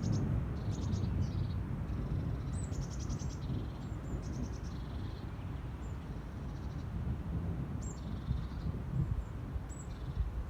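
A small songbird singing short phrases of rapid high trilled notes, repeated every second or two, over a steady low rumble.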